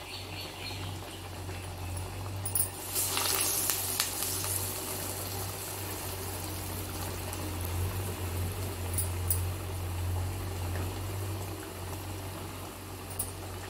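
Masal vadai (lentil fritters) deep-frying in hot oil in a pot: a steady sizzling and bubbling, with a louder burst of sizzling about three seconds in.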